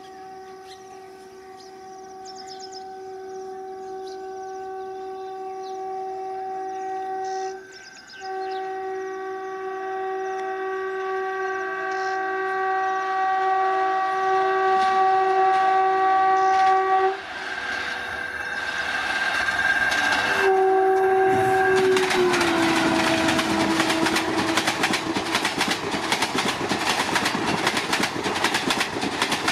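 WAP-4 electric locomotive's horn sounded in long, steady blasts, growing louder as it approaches, with a brief break about eight seconds in. A last short blast drops in pitch as the locomotive passes, about 22 seconds in. The coaches then rush by at about 103 km/h with a fast clickety-clack over the rail joints.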